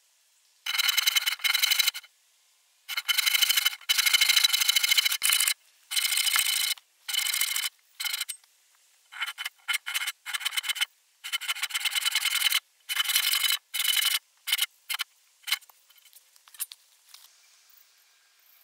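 Hand saw cutting into a squared log in runs of rapid back-and-forth strokes with short pauses between them. The runs grow shorter and fainter in the second half and die away about two seconds before the end.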